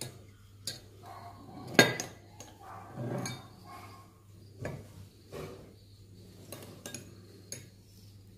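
Metal spoons clinking and scraping against small glass dessert bowls as chocolate cake is scooped out: a string of separate sharp clinks, the loudest about two seconds in.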